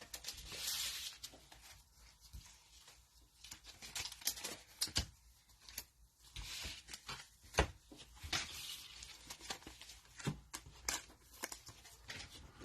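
Cellophane pack wrapper being torn open and crinkled, with trading cards being handled: scattered soft clicks and brief rustles.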